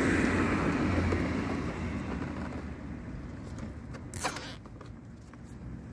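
Traffic noise from a vehicle going by, loudest at the start and fading away over a few seconds, over a low steady hum. About four seconds in comes a short rasp from the speaker wires being handled.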